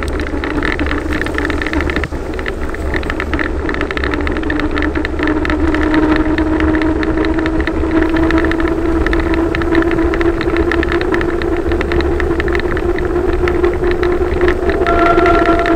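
A bicycle descending at speed through a road tunnel: a steady rush of wind and rolling noise with a low rumble and many small ticks. A hum grows stronger about five seconds in and creeps up in pitch as the speed builds.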